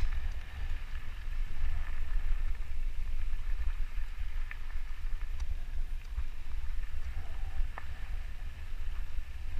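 Riding noise from a mountain bike on a dirt singletrack: a steady wind rumble on the camera's microphone over the hiss of tyres rolling on dirt, with a few sharp clicks from the bike.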